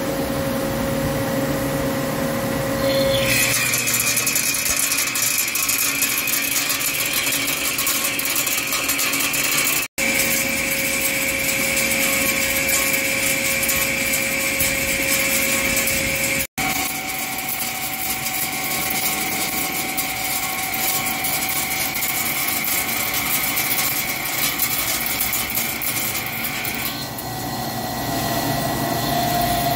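Hankook CNC lathe cutting a large steel roll spindle: steady machining noise with a high cutting whine that sets in about three seconds in and fades near the end. The sound drops out briefly twice.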